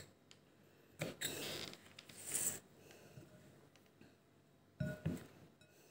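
Kitchen knife cutting bell peppers on a wooden cutting board: a few separate cuts and knocks of the blade on the board, about a second in, around two and a half seconds, and twice near the end, with near silence between.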